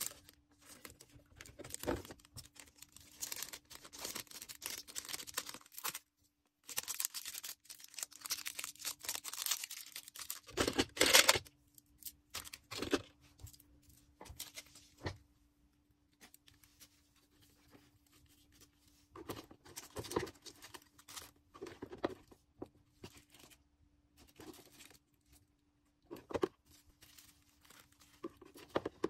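Hands handling packaging while packing a shop order: plastic and paper rustling and tearing in bursts, busiest in the first half and loudest about eleven seconds in, then sparser short rustles. A faint steady hum runs underneath.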